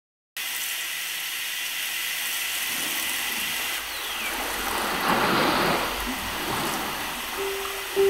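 Steady rush of running water, a continuous hiss that swells slightly midway. A held musical note comes in near the end.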